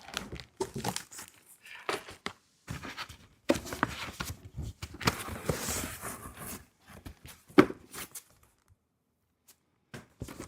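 Cedar wood beehive parts knocking and clattering as they are pulled out of a shipping box, with rustling of packing, in irregular bursts and one sharper knock about two-thirds through.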